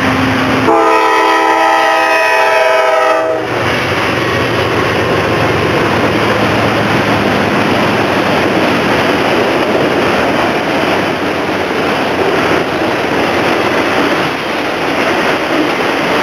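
A freight locomotive's multi-note air horn sounds once, a chord of several notes held for about three seconds near the start. Then comes the steady loud rumble and rattle of a manifest freight train's autorack cars rolling past on the rails.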